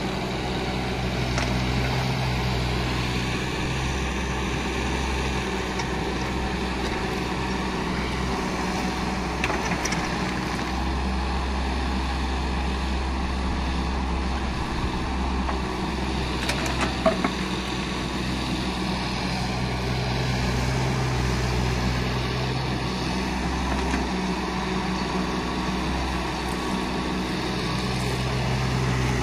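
JCB 16C-1 mini excavator's diesel engine running steadily under load while its arm and bucket dig and dump soil, the engine note shifting pitch a few times as the load changes. A short sharp knock comes a little past halfway.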